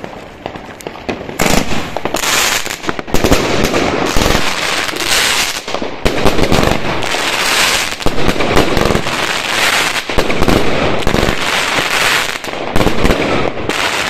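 A 25-shot, 25 mm Lonestar crackling fan cake firing. About a second and a half in, the shots begin: launch thumps mixed with the dense, continuous crackle of crackling stars bursting.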